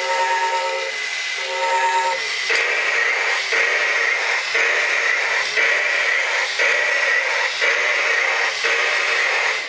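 Battery-powered M.A.R.S. Super Fighter toy robot playing its electronic sound effects through a small speaker. It opens with a pulsing, beeping scanning sound, then about two seconds in switches to a hissy walking stomp noise that repeats about once a second.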